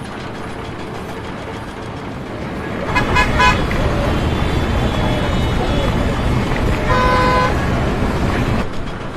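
A vehicle horn sounds twice, once about three seconds in and again about seven seconds in, each honk brief, over a steady noise of engines and traffic.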